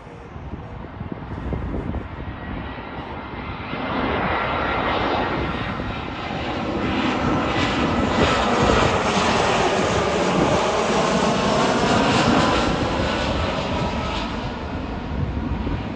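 Brussels Airlines jet airliner passing low on final approach to land, its engine noise swelling from a few seconds in, at its loudest around the middle and fading near the end. Wind buffets the microphone throughout.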